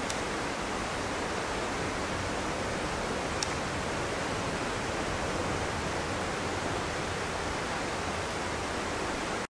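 Steady rushing noise, even across low and high pitches, with two faint ticks, cutting off abruptly near the end.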